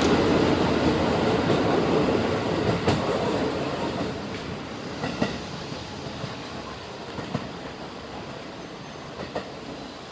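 JR West 223 series 2500-subseries electric train pulling away and fading, its wheels clacking sharply over rail joints a few times.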